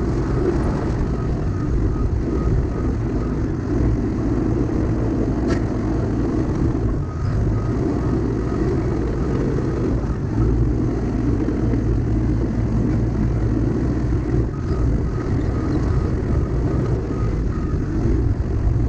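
Diesel engine of heavy tracked Caterpillar earthmoving equipment running steadily under load. A faint high chirp repeats about three times a second, coming and going in stretches.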